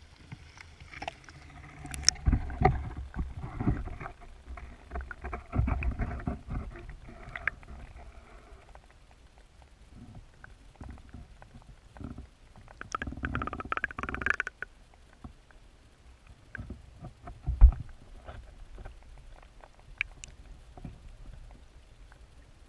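Creek water heard through a camera submerged in the stream: muffled gurgling and bubbling with irregular knocks and low thumps, busiest in the first eight seconds and again around thirteen to fourteen seconds in, with one sharp thump near eighteen seconds.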